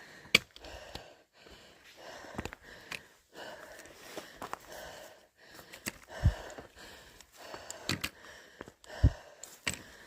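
Heavy, laboured breathing of a hiker on a steep uphill climb, a breath every second or so, broken by several sharp taps and knocks on the ground.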